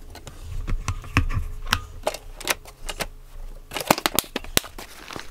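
Hard-shell plastic equipment case being handled: a string of sharp clicks and knocks from its snap latches and shell, with a tight cluster of clicks about four seconds in.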